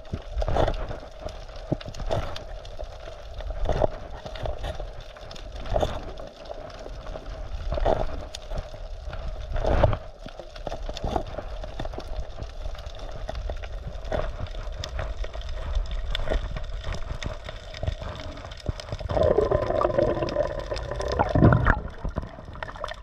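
Water sloshing and gurgling, with a louder surge about every two seconds, and a bubbling gurgle near the end.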